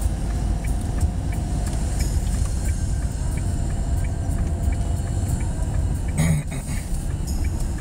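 Car interior: steady low engine and tyre rumble of a car driving slowly, with one short knock about six seconds in.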